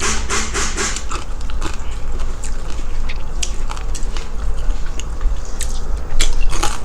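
Close-up biting and chewing of crispy fried pork skin and fat, with sharp crunches. The crunches come thickest in the first second and again near the end.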